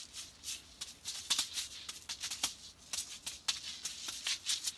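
Juggling balls being tossed and caught by hand, each catch a short rattle or slap in the palm, in a quick irregular run of several a second.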